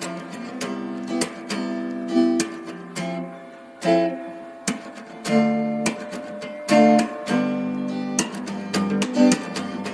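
Acoustic guitar music: chords struck and plucked one after another, each ringing out briefly before the next.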